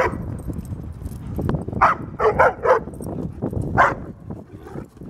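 German Shepherd barking: about six short, sharp barks, with a quick run of three in the middle. These are attention-seeking barks from a dog that wants to join the rough play.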